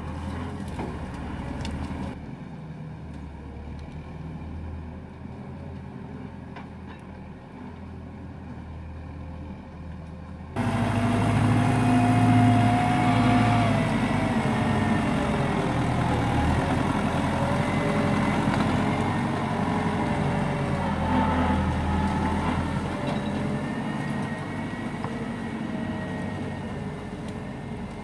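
Belarus MTZ 952.3 tractor's diesel engine working under load as it pulls a forestry trailer through mud. About ten seconds in it becomes suddenly much louder and closer, its pitch rising and falling with the throttle.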